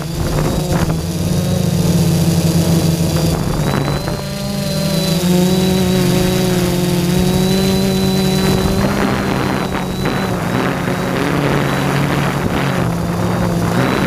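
Quadcopter drone's electric motors and propellers buzzing steadily, recorded by a GoPro mounted on the drone itself. The pitch shifts a few times as the motors change speed while it manoeuvres.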